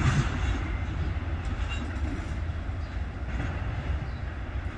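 Freight train rolling past: a steady low rumble of cars on the rails with a few faint clicks, easing slightly.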